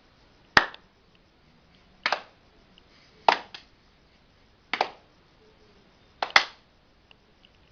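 Body percussion: about five sharp clap-like hand strikes, roughly one every one and a half seconds, some of them doubled in quick succession.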